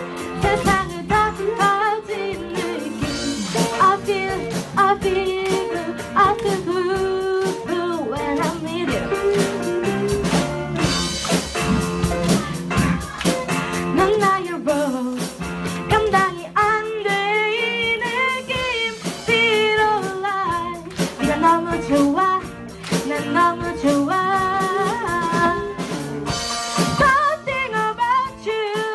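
Live amateur rock band playing a pop song: a girl sings the lead melody over electric guitar, electric bass, keyboard and a drum kit keeping a steady beat.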